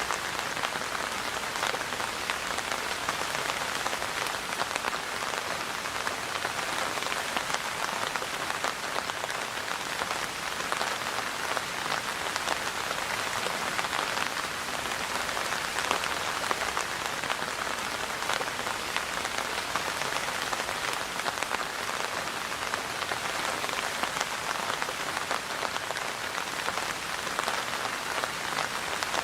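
Steady rainfall, a dense even patter of many drops striking a surface, with fine individual drop ticks throughout.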